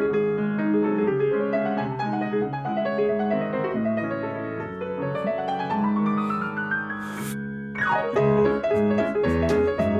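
Piano played with two players at one keyboard: held notes, then a fast rising run about halfway through. A brief rushing noise cuts in, followed by a quick falling run and a brisker, louder passage of short, detached notes.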